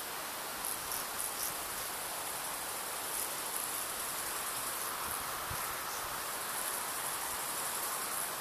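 Insects chirping in a high, steady band that flickers in short pulses, over a steady hiss.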